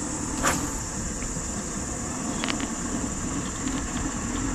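Steady high insect buzz over a low outdoor hum. A short sharp sound comes about half a second in, and a few faint ticks follow near the middle.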